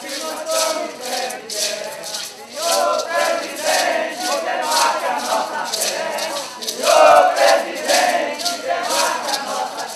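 A group of voices chanting together over gourd maracas shaken in a steady beat, about two shakes a second. The chanting swells loudest about seven seconds in.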